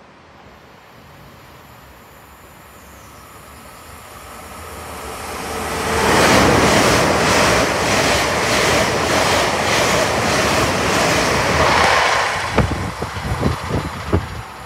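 A Great Western Railway Hitachi Intercity Express Train approaches and runs through the station at speed. Its rumble builds up, then the wheels and bogies beat evenly, about twice a second, as the coaches pass. Near the end it fades away under a few sharp thumps.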